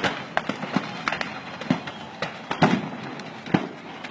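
Fireworks stock going off in a burning fireworks market: irregular sharp bangs and pops, two or three a second, over a steady crackling background. The loudest bangs come a little past halfway.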